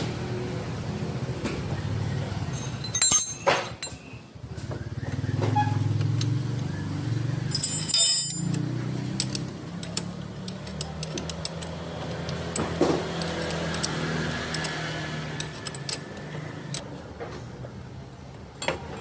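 Light metallic clicks and clinks of a Honda PCX150 rear brake caliper being refitted by hand: caliper body, pad pins and bolts knocking together, with a few ringing clinks. A steady low hum runs underneath.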